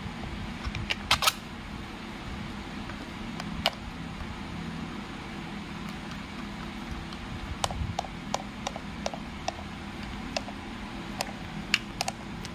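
Sharp, irregular clicks and taps of a screwdriver and small metal and plastic parts being handled while fitting the rotary handle mechanism onto a moulded case circuit breaker. There are a couple of clicks early, then a scattered run of them in the second half, over a steady low hum.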